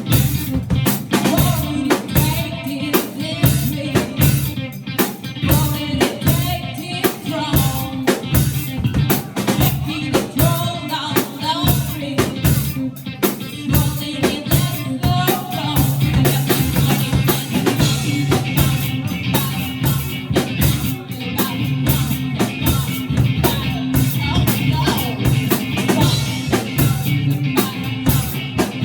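Live band playing an upbeat song, the drum kit driving a fast beat with snare and bass drum under the other instruments.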